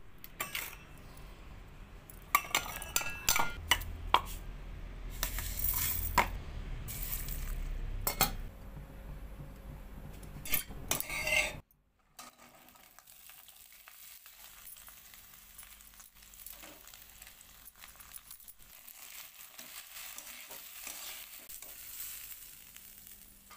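Steel bowls and a mixer-grinder jar clink and knock as garlic and shallots are handled. About halfway through, this cuts off suddenly to a softer, steady sizzle with light scraping ticks as cut flat beans and potato pieces fry in a steel kadhai and are stirred with a steel spatula.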